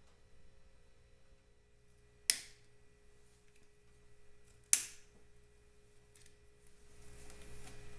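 Two sharp clicks about two and a half seconds apart, each with a short ring, from parts or tools being handled while the gauges are taken apart, over a faint steady hum.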